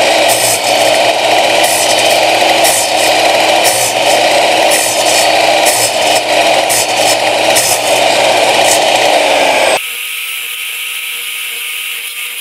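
8-inch miter saw (TNT TC-0840L) running and cutting a groove into a wooden block in repeated shallow passes, its blade held to a set depth by the depth stop, with recurring surges as the teeth bite the wood. After about ten seconds the cutting noise stops abruptly, leaving a quieter steady whine.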